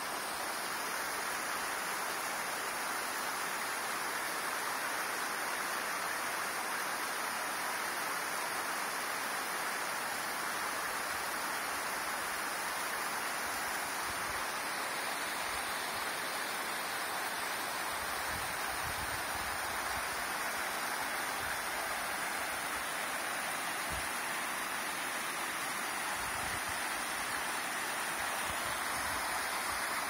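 Mountain waterfall and stream cascading over rocks: a steady rush of water.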